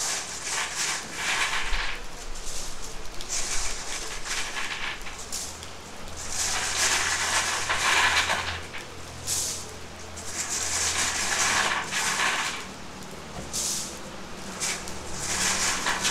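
Rain falling, a hiss that swells and fades in waves every few seconds, with a faint low hum underneath in the middle.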